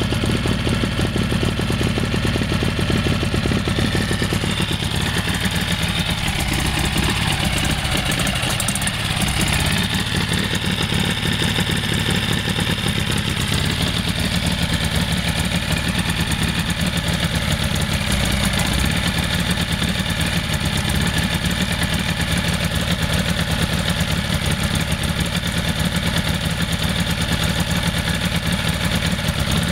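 Tohatsu 6 hp four-stroke outboard motor running steadily with its lower unit in a tub of water, the note wavering briefly about eight seconds in.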